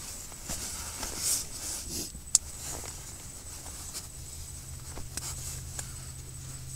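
Rustling of bedding and tent fabric as someone shifts about, with one sharp click about two seconds in and a few lighter clicks later. A low steady hum starts about four seconds in.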